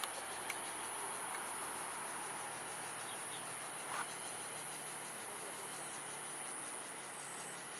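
Insects trilling in one continuous, high-pitched drone over a steady background hiss, with a brief chirp about four seconds in.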